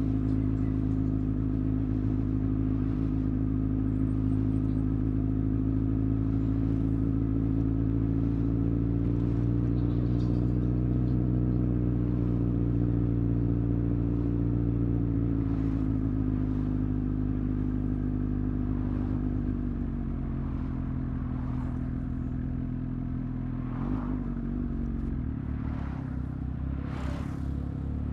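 Suzuki GSX-S1000's inline-four engine running steadily at highway cruising speed. The revs rise a little, then fall away over the last several seconds as the bike slows.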